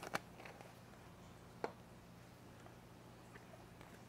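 Faint clicks and taps from a screw-lid plastic specimen cup being handled and opened: a few right at the start and a single one about a second and a half in, over a steady low hum.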